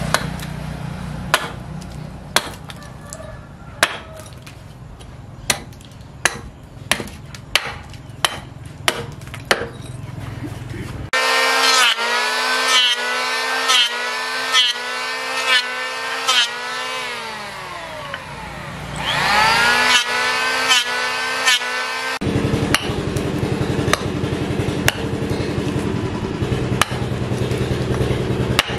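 Hatchet chopping into a block of wood on a stump, one sharp strike after another. About a third of the way in, an electric hand planer starts and runs with a whine that wavers as it cuts; it winds down, starts up again, and stops suddenly. Hatchet chopping resumes.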